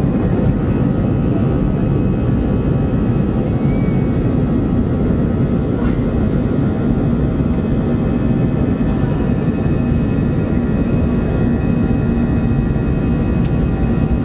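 Airbus A319/A320 jet engines heard from inside the passenger cabin during the takeoff roll: a loud, steady roar with a constant whine running through it.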